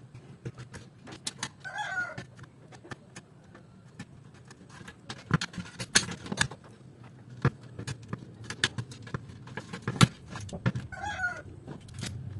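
Irregular clicks, taps and clatter of a screwdriver and metal parts being handled on an opened DVD player's sheet-steel chassis. Two short animal calls sound in the background, about two seconds in and again near the end.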